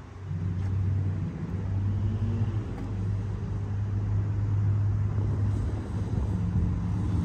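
A motor engine running steadily with a low hum, shifting slightly in pitch now and then.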